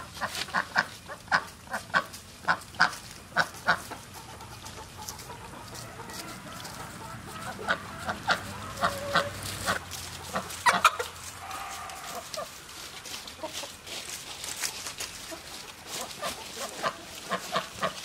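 Chickens clucking, with a rapid run of short sharp sounds in the first few seconds and scattered calls after, over the sloshing of water as a rooster is dipped into a bucket of permethrin lice treatment.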